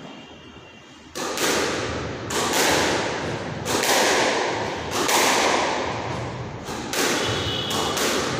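A squash rally: the ball is smacked by rackets and off the front wall about once a second, each hit sharp and followed by the echo of the court. The hits begin after about a second of quiet.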